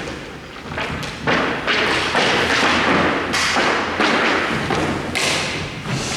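Hockey play: a string of thuds, each followed by a scraping rush, one after another, from sticks, puck and players on the playing surface.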